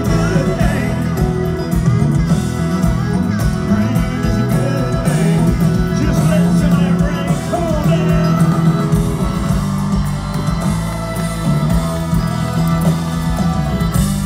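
Live country band with a male singer singing into a microphone over guitars and drums, heard through the PA from within the crowd.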